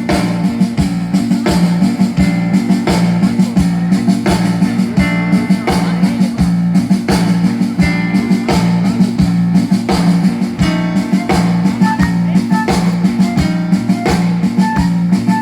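Live rock band playing an instrumental passage, with guitar and a drum kit keeping a steady beat over a bass line.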